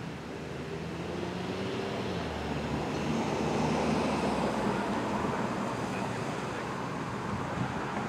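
A road vehicle passing: engine and tyre noise swelling to a peak about halfway through, then easing off, with wind on the microphone.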